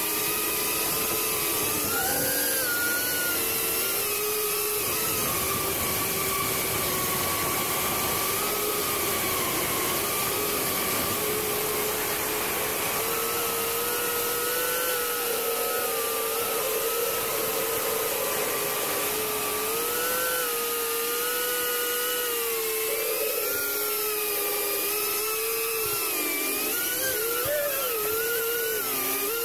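Brushless motors and ducted propellers of a small FPV cinewhoop drone whining in flight. The pitch wavers up and down with the throttle, swinging more toward the end.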